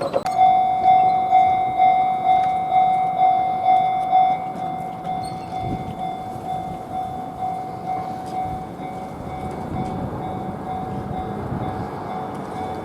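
Railway level-crossing warning bell starting up and ringing its repeated 'kan kan' tone, about two strikes a second. It is loud at first and becomes noticeably quieter after about four seconds, then keeps ringing.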